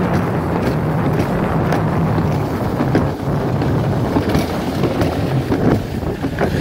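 Alpine slide sled running down a concrete chute: a steady rolling rumble, with wind buffeting the microphone.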